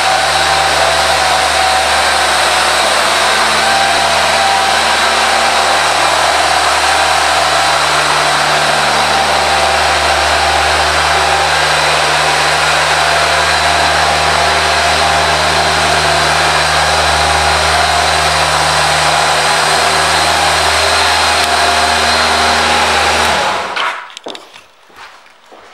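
2003 Kawasaki ZZR1200's inline-four engine idling steadily, then shut off abruptly about 23 seconds in, leaving a few faint clicks.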